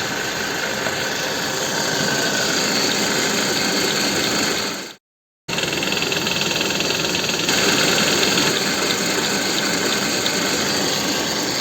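Toyota Estima engine idling steadily, its balance shafts freshly restored, heard close up with an even mechanical whir. The sound cuts out completely for about half a second near the middle.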